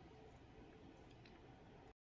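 Near silence: faint room tone, cut off to dead silence just before the end.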